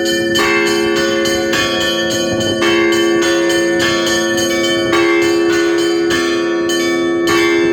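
Orthodox church bells ringing: smaller bells struck in a quick, steady rhythm over the lingering hum of a larger bell.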